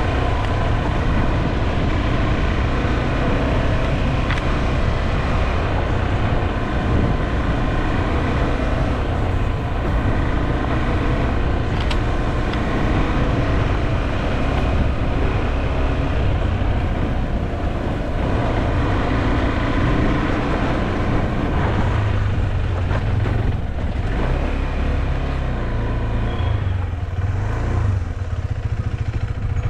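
Motorcycle engine running steadily while riding along a dirt road, its pitch shifting a little with the throttle, over a constant low rumble.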